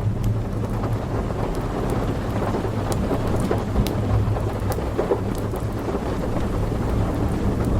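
Steady rain with a continuous low rumble of thunder, dotted with sharp pops and crackles from a log fire.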